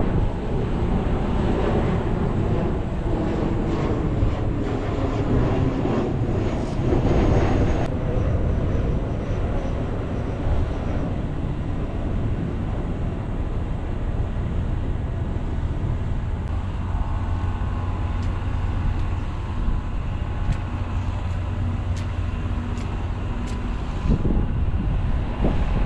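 Wind buffeting the microphone, a steady rumble that is strongest in the first few seconds. A faint steady hum joins about two-thirds of the way through.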